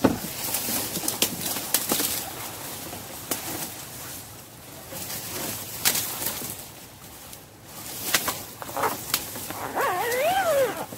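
Rustling and handling noise as a shotgun is packed into a soft gun case amid dry reeds, with scattered sharp clicks and knocks. Near the end comes a short whine with a rising and falling pitch.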